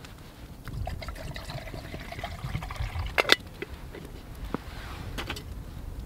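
Water pouring into a small metal pot for about two seconds, then a sharp knock about three seconds in as the pot is set on the campfire grill, with a fainter knock near the end.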